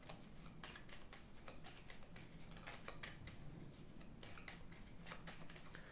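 Deck of playing cards being shuffled overhand by hand, a faint, quick run of soft card clicks, several a second.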